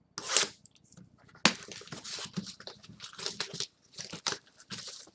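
Trading card pack wrappers being torn open and crinkled: a quick rip near the start, then a string of short tearing and crackling rips.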